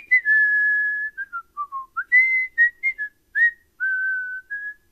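A person whistling a short tune: a quick rising swoop, a long held note, a few notes stepping down, then several short higher notes and a final held note.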